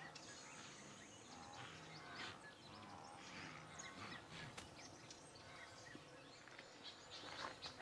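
Faint open-grassland ambience: a low steady hiss with scattered short bird calls and chirps.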